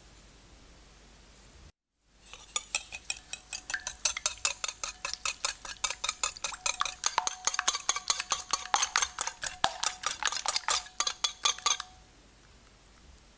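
Wire whisk beating wet batter in a ceramic bowl: quick, even clinks of the wires against the bowl, about five a second, starting about two seconds in and stopping shortly before the end.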